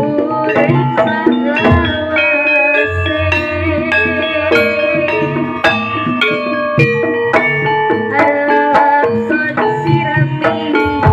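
Jaranan music: kendang hand drums play a fast, busy rhythm under a melody of steady held notes.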